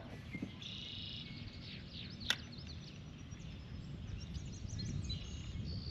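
Small birds chirping and calling in short, quick notes over a steady low rumble of outdoor background noise, with one sharp click a little over two seconds in.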